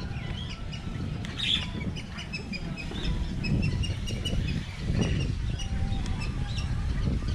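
Many birds chirping at once, short high calls overlapping without a break, over a low rumble.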